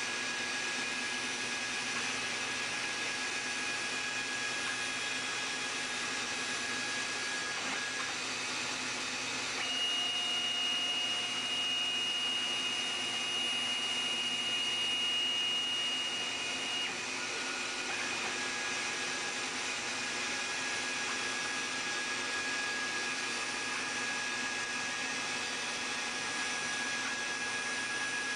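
Rotary-tool spindle of a home-made CNC router running at high speed while its bit cuts a sheet, a steady high whine. From about ten seconds in to about seventeen seconds the whine steps up to a higher pitch and gets a little louder, then settles back to its earlier tone.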